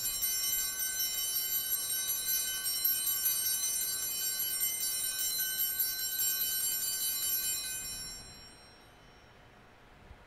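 Altar bells rung steadily during the elevation of the host at the consecration: a bright, high, many-toned ringing that dies away about eight seconds in.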